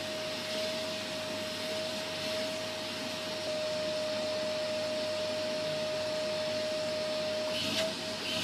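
Vacuum cleaner running steadily while its hose nozzle is moved over a cat's fur: one constant whine over the rush of air.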